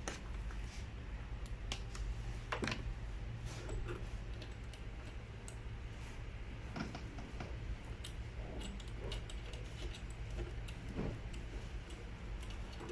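Irregular light clicks and taps of hard parts being handled, over a steady low hum.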